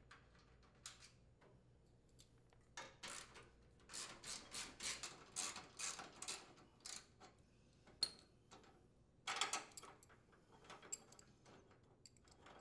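Socket ratchet clicking faintly in several quick runs with short pauses as it unthreads a steering-plate mounting bolt on a riding mower.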